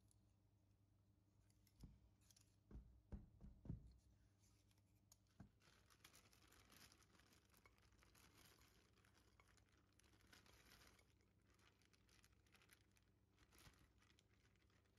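Faint kitchen handling sounds: a quick run of soft knocks as the springform cheesecake pan is handled, then a light crackling rustle and small clatters as sour cherries go into a nonstick frying pan.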